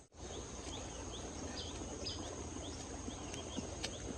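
Outdoor ambience of birds and insects: a steady high-pitched insect drone, with short bird chirps repeating every half second or so.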